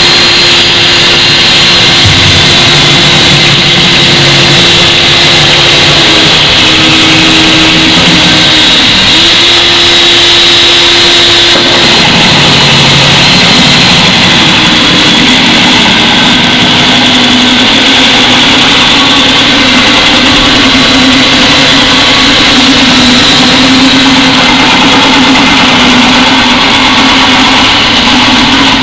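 Cordless drill motor running continuously under load, its whine stepping up and down in pitch a few times as the trigger is eased and squeezed, then settling lower about halfway through, over a steady rushing noise.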